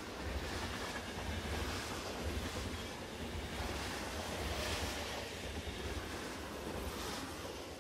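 A steady rushing noise like wind or surf, with a deep rumble underneath.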